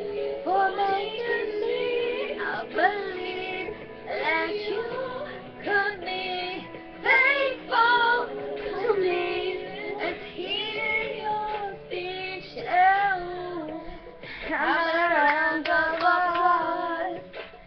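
Young women singing a pop song along with recorded backing music, the voices sliding and holding notes throughout.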